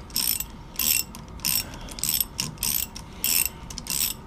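Ratchet handle driving an M20 tap into a hardened steel bar. Its pawl clicks in a short high-pitched burst about every two-thirds of a second as the handle swings back and forth.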